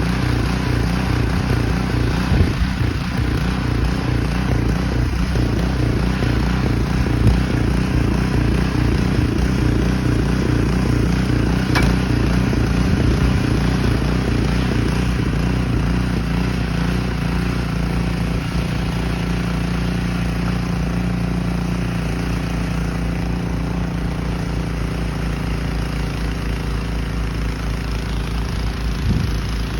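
An engine running steadily, its note wavering up and down for the first half and then settling to an even tone about halfway through.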